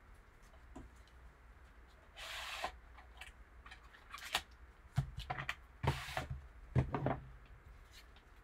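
Gloved hands handling an opened cardboard Panini Origins card box: a short scraping slide about two seconds in, then a cluster of taps, knocks and rustles from about five to seven seconds in.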